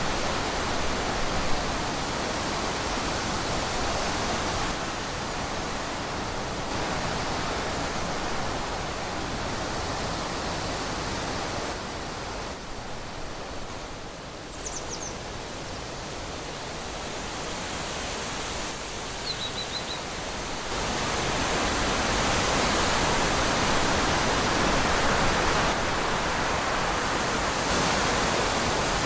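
Wind blowing through trees, a steady rush that eases off in the middle and swells again about two-thirds of the way through. A bird chirps faintly twice.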